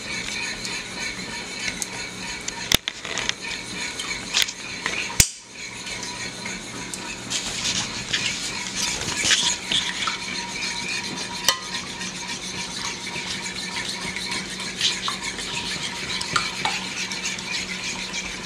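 A spoon stirring a wet mix of eggs, ketchup and tomato sauce in a ceramic baking dish, scraping steadily around the dish with a few sharp clicks where it knocks against the side.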